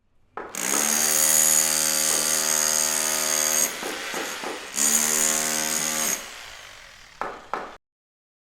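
Power tool running in two bursts, a steady whine with a hiss above it, the first about three seconds long and the second shorter; two short clicks follow near the end.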